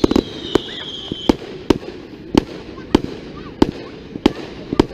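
Fireworks going off: a string of sharp bangs at fairly even spacing, about one every two-thirds of a second, with a whistle falling in pitch and fading out in the first second or so.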